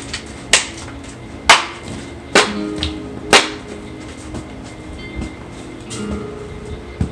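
Hockey stick blade slapping the snow-covered driveway in repeated slap-shot swings: sharp clacks about once a second, four of them, then two fainter ones near the end. Background music plays throughout.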